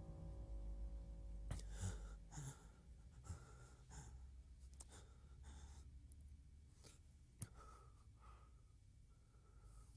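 Near silence: a man's faint breathing and sighs. Held music tones die away about a second and a half in, and there is a single sharp click about seven and a half seconds in.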